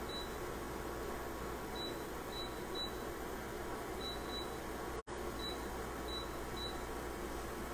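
Portable induction cooktop's touch-control buttons beeping as they are pressed: about nine short, high beeps of the same pitch, some in quick pairs, over a steady hiss.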